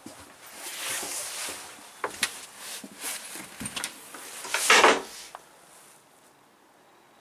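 Handling noise from a handheld camera: scattered clicks, knocks and rustling, with a louder rubbing rush about four and a half seconds in. It then goes quiet.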